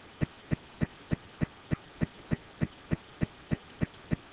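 Steady, evenly spaced ticking, about three sharp ticks a second, keeping an unchanging beat.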